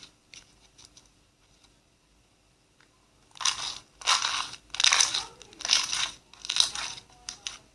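Slime squeezed and pressed by hand. A few faint clicks come first, then from about three seconds in five loud noisy strokes follow roughly two-thirds of a second apart, with lighter clicks near the end.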